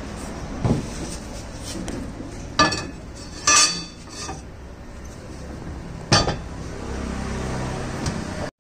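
Large aluminium cooking pot and its lid clanking and knocking as the pot is gripped with cloths and lifted off a gas burner stand: about four metallic knocks, the loudest and longest-ringing about three and a half seconds in.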